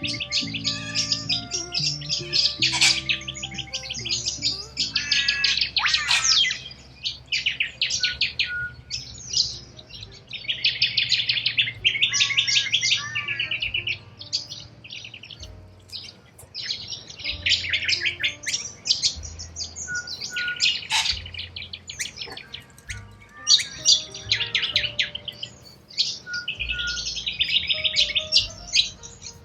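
Corella cockatoos calling over and over, each burst of rapid pulsed calls lasting about a second, with short pauses between bursts.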